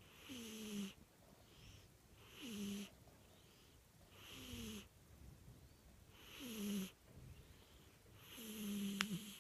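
A cat snoring: five short snores about two seconds apart, each a brief wheeze that falls in pitch. A sharp click near the end.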